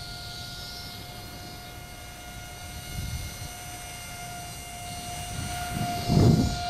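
Steady high-pitched whine of a ZOHD Drift RC plane's front-mounted 1406 2600KV brushless motor and two-blade propeller in flight, holding one pitch. A short, louder low rumble comes about six seconds in, as the plane passes close overhead.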